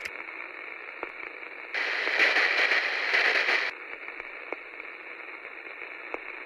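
Radio static: a narrow band of hiss with a few sharp crackles. It swells into a louder, brighter burst of static for about two seconds near the middle, then drops back.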